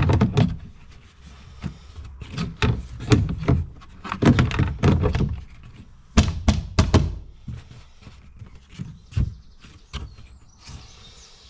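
A Land Rover Discovery Sport's interior door card being fitted back onto the door: a run of irregular knocks, thunks and clicks as the trim panel is pushed and pressed into place.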